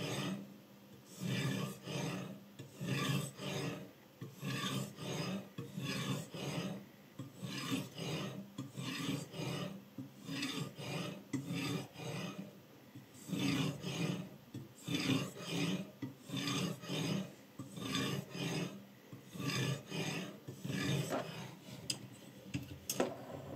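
Abrasive bar of a guided knife-sharpening system being stroked back and forth along the edge of a Damascus-patterned kitchen knife blade, a rasping scrape about once a second with a short pause about halfway. A couple of sharp clicks come near the end.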